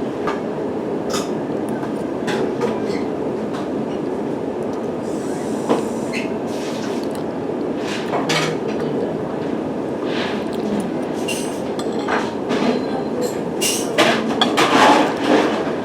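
Train running: a steady rumble with repeated clicks and rattles, busier near the end.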